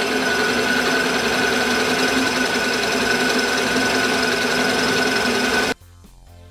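PM-727M benchtop milling machine running with its end mill taking a light cut across the edge of a metal block: a steady machine sound with a constant high whine over a lower hum. It cuts off suddenly near the end, leaving faint background music.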